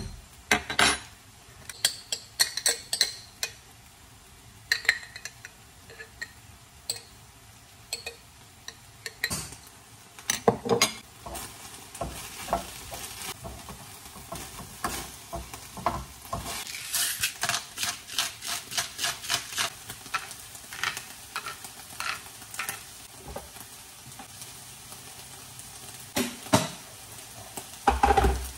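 Diced chicken sizzling in a wok on a gas hob, with scattered clinks and knocks of a spoon and a wooden spatula against the pan and a jar, and a run of quick scraping stirring strokes in the second half.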